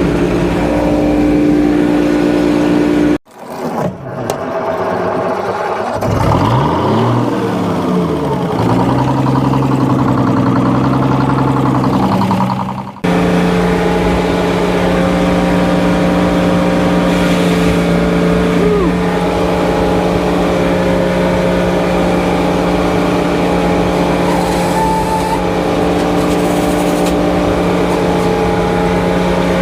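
Engine of a Frick 01-C sawmill running steadily, its pitch sweeping up and down for several seconds after a break about three seconds in. The sound cuts off abruptly twice, about three and thirteen seconds in, each time picking up again at a steady speed.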